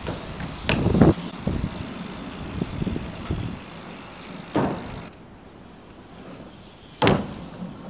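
BMX bike rolling, with tyre and road noise and sharp knocks about one second in, at four and a half seconds, and again near the end.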